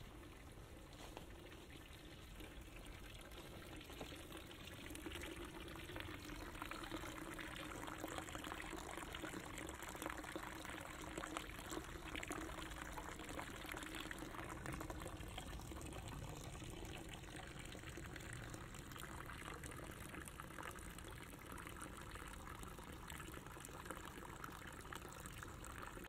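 Steady trickling of running water, a little louder for a while from a few seconds in.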